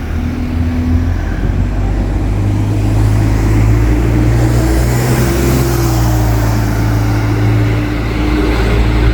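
Diesel engine of an ADL Enviro 200 single-decker bus running steadily, its note getting louder about half a second in and rising slightly around five seconds in before settling.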